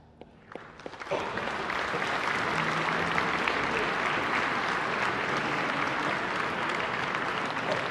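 Concert audience applauding: a few scattered claps at first, then full applause breaking out about a second in and holding steady.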